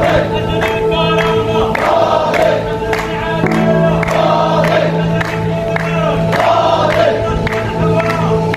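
Crowd of protesters chanting slogans in unison, with steady rhythmic hand-clapping about twice a second.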